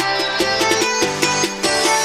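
Background music: an instrumental track with quick plucked-string notes over held tones.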